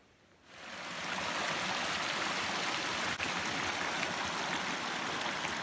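Small stream running over rocks: a steady rushing of water that fades in about half a second in.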